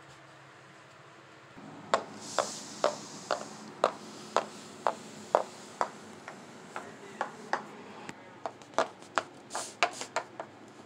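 Small metal figurine tapped against a wooden floor in short clicks to mimic walking, first at an even pace of about two a second, then in quicker, uneven taps.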